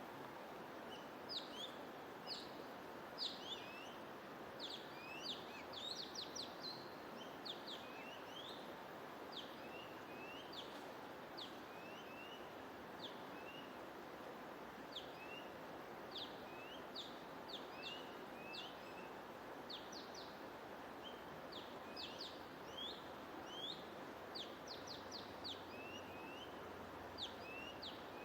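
Small birds chirping: many short, quick high chirps and rising notes, coming every fraction of a second to a second, over a steady background hiss of white noise.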